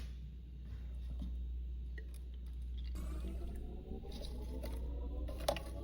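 Faint wet pattering and scraping while plants are watered, then from about three seconds in several tones start rising slowly together in pitch, with one sharp click near the end.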